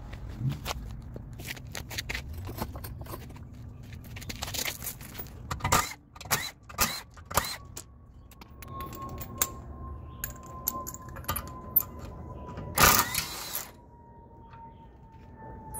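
Metal clinks and knocks of steel lug bolts and tools being handled during a wheel change, with a louder rattling burst under a second long about thirteen seconds in. A faint whine slowly drops in pitch through the second half.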